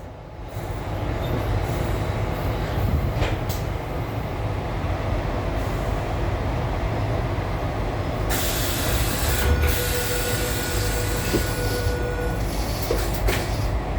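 Tangara electric multiple unit running, heard from inside the carriage: a steady low rumble with a few sharp clicks from the wheels and track. From a little past halfway a hiss joins in, with a steady whine for about three seconds.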